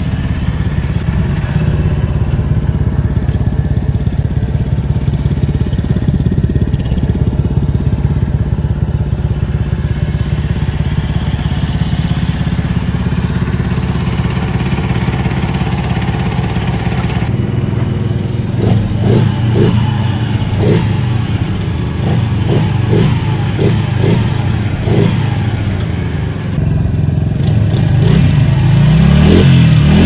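Honda Super Cub's air-cooled single-cylinder four-stroke engine running through a Moriwaki Megaphone racing exhaust, with a steady, bassy exhaust note. About halfway through the sound changes abruptly: a string of short sharp clicks comes over the running engine, and near the end it revs up.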